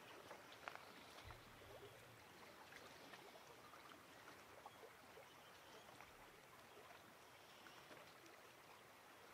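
Near silence: faint outdoor ambience with scattered faint ticks, and a brief low hum about a second in.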